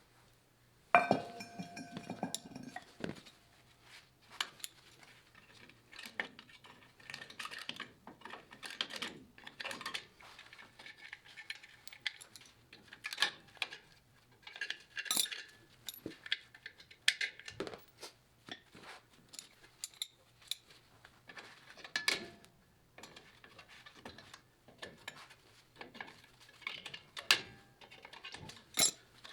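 Metal hand tools clinking and knocking against metal parts in a long run of irregular sharp taps. The loudest clank, about a second in, rings briefly.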